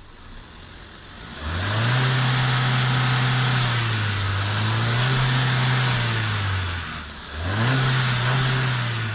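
VW 1.4-litre 16-valve TSI (CAVC) petrol four-cylinder engine running in the car, revved up about a second and a half in and held at raised revs. It sags briefly, rises again, drops sharply near seven seconds and is revved once more: a test run of a used engine.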